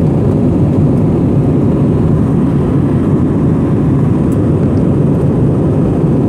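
Steady airliner cabin noise during the climb after takeoff: engine and airflow noise heard from inside the cabin, loud and even, weighted to the low end.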